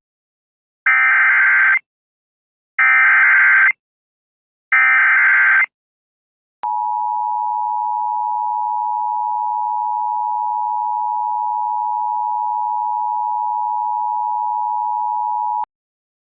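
Emergency Alert System (EAS) tones: three short bursts of warbling digital header data, each just under a second, evenly spaced, then after a one-second gap the steady two-tone attention signal, held for about nine seconds and cutting off suddenly.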